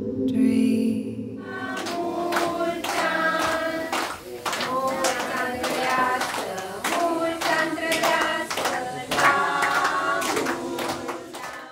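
A group of people singing together and clapping along, starting about a second and a half in after a steady low musical tone.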